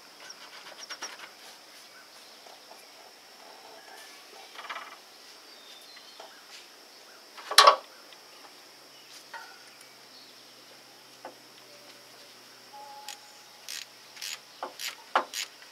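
Light clicks and knocks of hand tools and a hose clamp while fitting a radiator hose, with one sharp clank about halfway through and quicker clicks near the end. A steady high insect chirring runs underneath.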